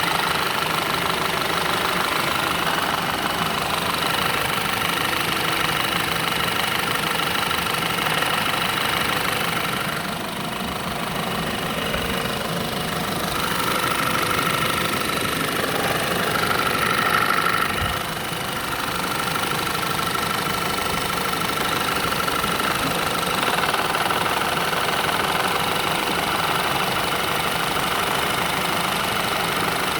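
2.0 TFSI turbocharged four-cylinder petrol engine running, with a fast, steady knocking mixed into its sound. The owner cannot explain the knock.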